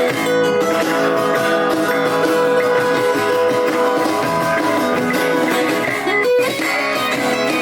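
Live band playing an instrumental passage of a song, led by strummed and picked guitars, with a brief break about six seconds in.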